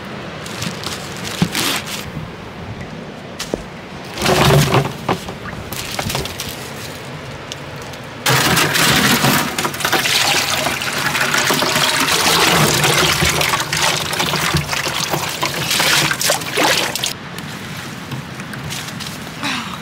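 Maple sap splashing and pouring as a plastic bucket is worked in a plastic sap barrel: a steady rush of liquid for about nine seconds, starting about eight seconds in. Before it come a few knocks and one loud thump about four seconds in.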